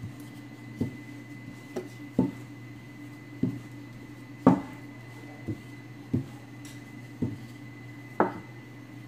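Wooden rolling pin knocking and thudding against a floured table while dough is rolled out: about nine irregular knocks, roughly one a second, the loudest about halfway. A steady low hum runs underneath.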